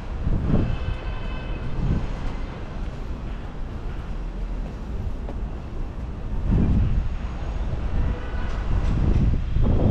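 Wind buffeting an action camera's microphone: a low rumble that swells in irregular gusts, heaviest near the end.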